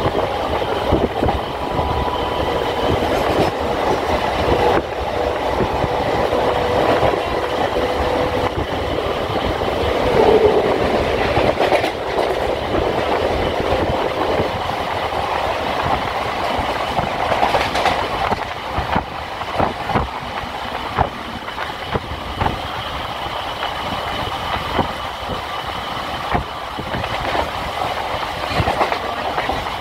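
Howrah–Haldia suburban electric local train running along the track, its wheels clacking over rail joints above a steady rumble. A thin steady whine sounds for roughly the first eight seconds.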